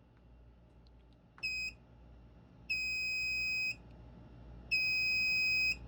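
Fire alarm system's electronic sounder beeping: one short, high-pitched beep, then two longer beeps of about a second each, a second apart, with the alarm still active and waiting to be silenced.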